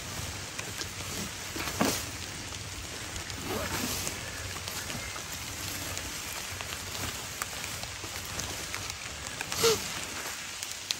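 Dry leaf litter crackling and rustling as a Komodo dragon tugs at and feeds on a carcass. There are two louder sudden sounds, one about two seconds in and one near the end.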